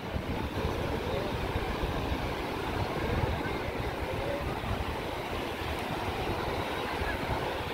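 Surf washing onto a sandy beach with wind rumbling on the microphone: a steady rushing noise with no clear pauses.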